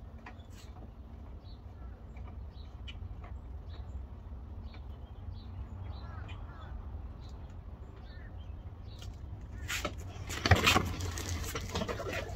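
Small scattered clicks of hands working on a new Toro TimeMaster 30-inch push mower over a steady low rumble, then, from about ten seconds in, loud rustling and clattering as the mower's handle is raised and the mower is worked in its cardboard box.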